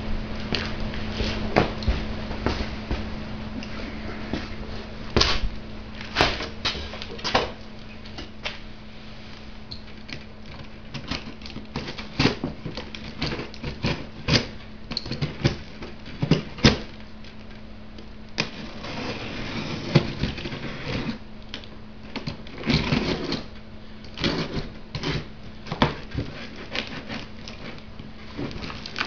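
Cardboard box and packing tape being torn open by hand: scattered sharp crackles, knocks and rips of cardboard, with longer ripping stretches past the middle, over a steady low electrical hum.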